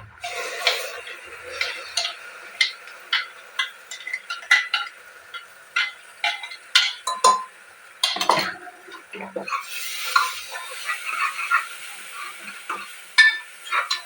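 A spatula stirring in a cooking pan: irregular scrapes and knocks against the pan, one or two a second, over a light sizzle of frying.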